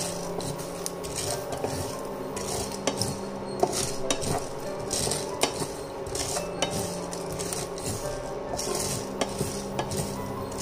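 A spatula stirring and scraping black peppercorns, white sesame seeds and garlic cloves as they roast in a nonstick frying pan, with the seeds rattling, irregular small clicks and a light sizzle. A steady low hum runs underneath.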